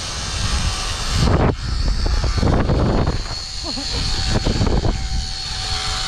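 Zipline trolley running down the steel cable with wind buffeting the microphone; a high, steady whine grows louder from about a second in.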